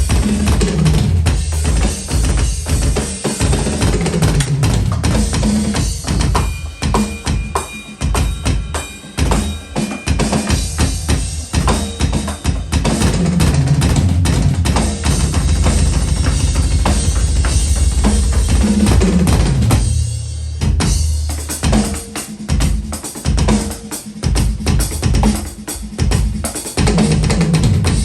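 Roland VAD706 electronic drum kit and SPD-SX sampling pad played in a busy groove: kick, snare and cymbal hits over low pitched bass tones that slide downward, with a short break about two-thirds of the way through.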